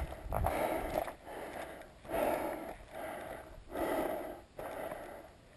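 A hiker's heavy breathing while labouring uphill on a rocky mountain trail: a steady rhythm of breaths, about one a second.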